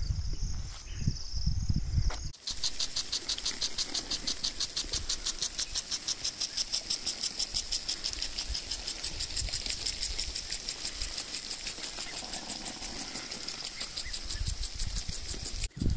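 Impact sprinklers on riser pipes spraying water, their swing arms ticking in a quick, even rhythm of about four to five sharp spray pulses a second. Wind buffeting the microphone and insects come first, ending abruptly about two seconds in.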